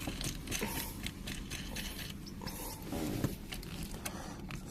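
Small clicks and scrapes of a steel bolt, washers and nut being handled and fitted by hand, a scattered series of short ticks.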